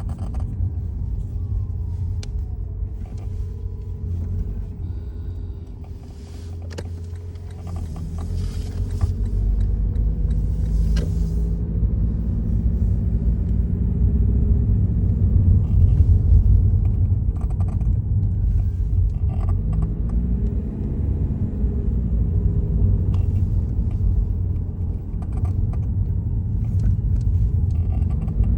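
Creaking with scattered clicks over a steady low rumble.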